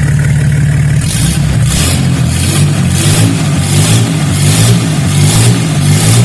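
Nissan RD28 2.8-litre straight-six diesel running on a test stand, with a regular pulsing hiss repeating a little under twice a second from about a second in.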